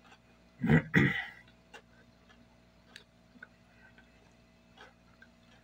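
A man eating rice and beans: two short throat noises about a second in, then quiet chewing with a few faint clicks of a metal spoon against a ceramic plate.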